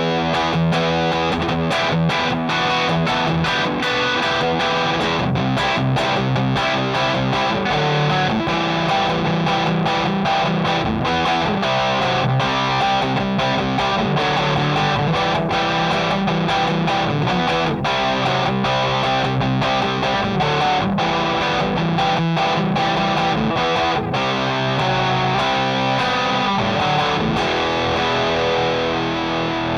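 Electric guitar played through the Plexicruise, a Marshall-voiced FET distortion pedal, giving a crunchy amp-like distorted tone with a full bass, many picked notes and chords.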